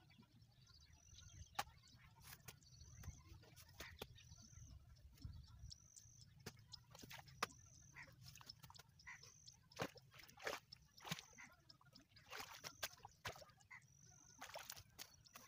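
Faint wet knocks, scrapes and sloshes of a spade working mud and water in an irrigation channel. A short high chirp repeats about once a second.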